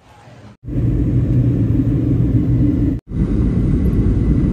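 Jet airliner cabin noise: the engines' steady, loud rumble with a constant low hum, heard from inside the cabin. It drops out for a moment about three seconds in and resumes.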